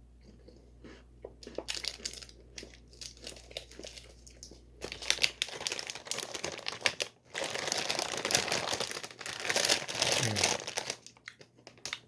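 Crinkling and rustling of a plastic biscuit wrapper being handled. It starts as a few light crackles and becomes dense crinkling about five seconds in.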